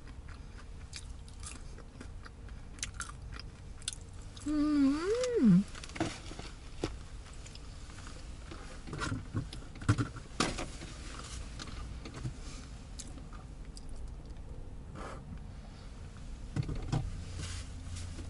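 A person chewing and crunching cheese fries, with scattered small clicks of mouth and food. About five seconds in comes a short hummed "mm" that rises and falls. Later there is paper rustling as a takeout bag is rummaged.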